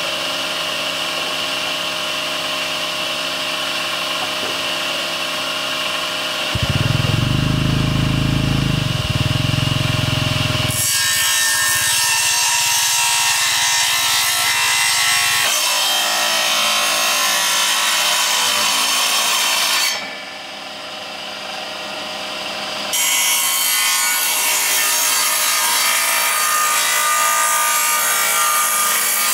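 Bench-mounted circular saw on a combination woodworking machine, ripping long wooden boards. The motor hums steadily at first, then grows louder and harsher as the cuts run, with a short softer break about two-thirds of the way through.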